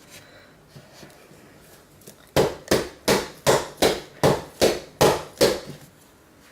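Nine sharp knocks in a steady rhythm, about three a second, starting a couple of seconds in: hot-process soap batter being tamped down in a cardboard Pringles-can mold to drive out air pockets.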